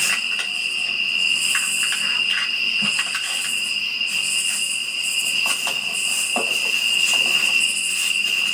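A steady high-pitched whine with faint scattered ticks and taps over it.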